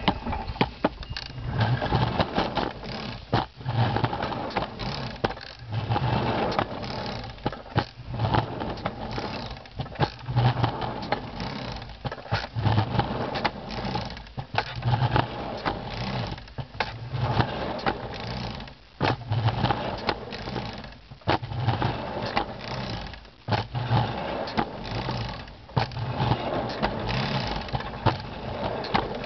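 Home-built hand car rolling along small-gauge backyard rail track: wheels rumbling and scraping on the rails with frequent sharp clicks, and a regular low throb about once a second.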